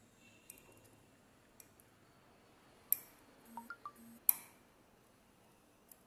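Steel lock pick and tension tool working inside a car door lock cylinder: faint metallic ticks, with two sharper clicks about three seconds and just over four seconds in and a short scratchy patch between them.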